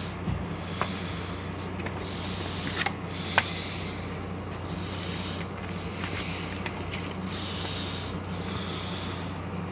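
Paper pages of a DVD episode-guide booklet rubbing and rustling under a hand as it is leafed through, with a few small sharp clicks, over a steady low hum.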